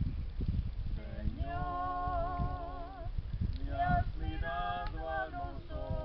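A voice singing held, wavering notes in several phrases, over a steady low rumble.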